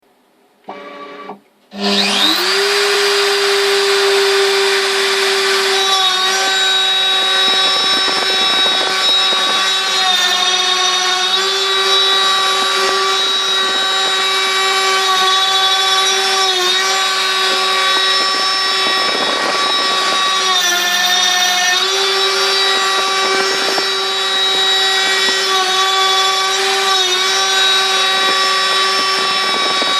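The spindle of a homemade CNC router spins up about two seconds in, after a brief noise, and runs with a steady high whine. It is milling a contour in oak with a 6 mm corn-style end mill, and its pitch dips briefly several times as the cut loads it.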